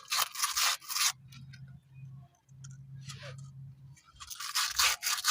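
Scrubbing brush rubbing along wet seat-belt webbing in strokes: a burst of brushing at the start, a short stroke in the middle and a run of strokes near the end.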